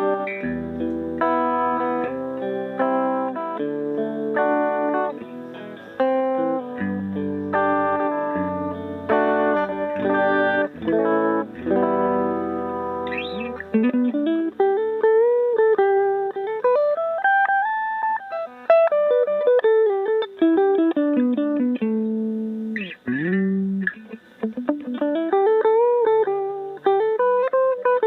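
Electric guitar with three single-coil pickups wired in series, played clean with a flat EQ. Chords are strummed for about the first half, then single-note runs climb and fall, with a couple of quick slides.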